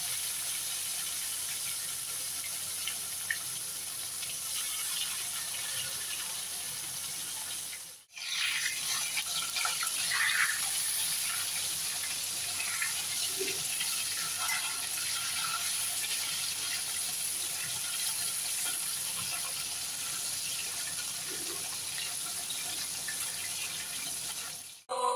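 Fish pieces frying in hot oil in an iron kadai: a steady sizzle, with a spatula now and then scraping the pan as the pieces are turned.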